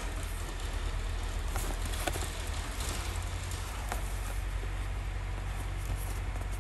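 Fingers handling a small cardboard box, with scattered light taps and rubbing on the cardboard, over a steady low rumble.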